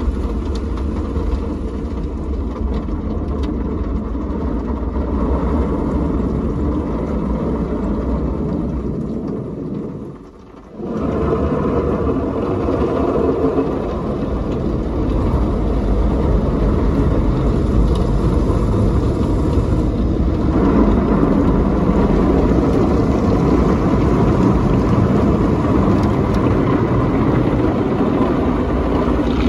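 Drive-through car wash machine working over the car, heard from inside the cabin: a steady mechanical whir with rushing water. The noise cuts out briefly about ten seconds in, then comes back and grows louder as water sprays across the windscreen near the end.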